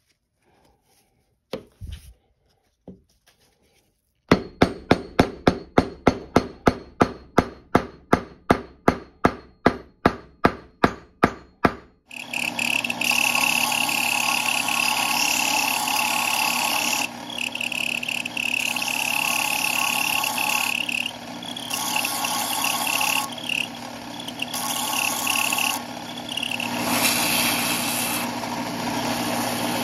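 About two dozen sharp taps, roughly three a second, for some eight seconds. Then a belt sander starts and runs steadily, its grinding noise coming and going several times as the wooden handle is pressed against the moving belt and lifted off.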